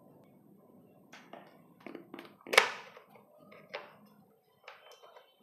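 Scattered light taps and clicks of small plastic parts and tools being handled as the plastic receiver box of an RC truck is pulled apart, with one sharper knock about two and a half seconds in.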